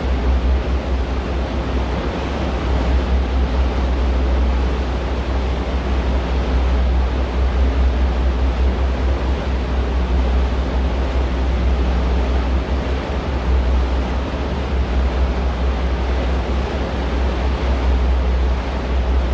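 Steady low rumble under an even rushing hiss aboard a moving tour boat: engine, water and wind noise.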